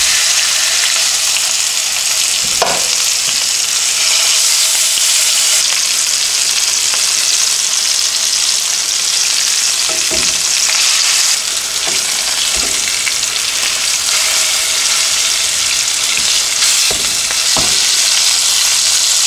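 Beef short ribs searing in hot oil in a skillet over medium-high heat, a loud steady sizzle. About four short knocks come through as the tongs turn the ribs against the pan.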